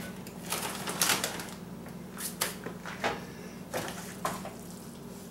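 Handfuls of Fritos corn chips being dropped into a bowl: a crisp rustle and clatter several times, about a second apart, over a steady low hum.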